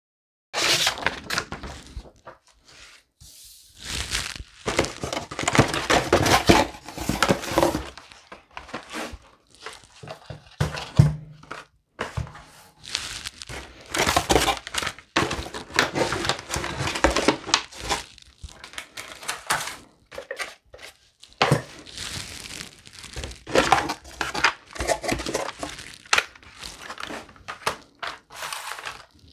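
Plastic packaging crinkling and rustling in irregular bursts as it is handled, stopping and starting every second or two.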